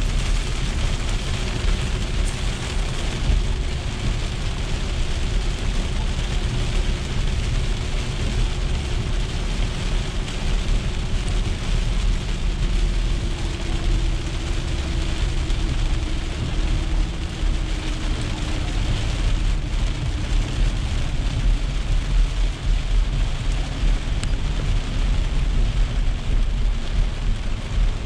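Heavy rain falling on a car's windshield and roof, heard from inside the cabin over a steady low rumble of tyres on the flooded road. The sound is an even, unbroken wash with no single loud event.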